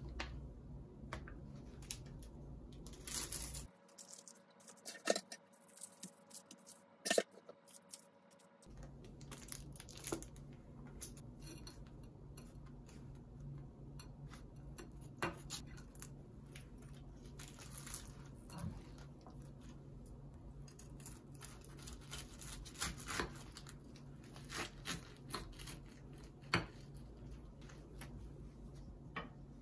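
Quiet food-preparation handling sounds as a sandwich is layered on toast: scattered soft rustles, crackles and light taps on a plate, with two sharper clicks about five and seven seconds in.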